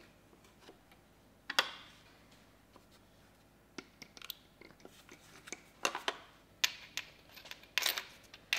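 Light metal clicks and clinks as steel camshafts and their chain sprockets are set into the aluminium cylinder head of an Alfa Romeo 105 twin-cam engine, with the sharpest knock about one and a half seconds in.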